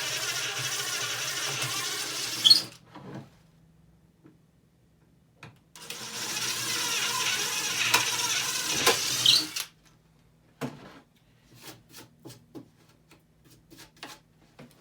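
Power drill boring two holes through plywood, each run lasting a few seconds with a short pause between, followed by several light knocks and clicks as parts are handled.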